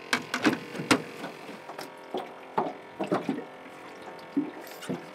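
Choppy water slapping and lapping against a small aluminium boat's hull, with scattered short knocks and clicks.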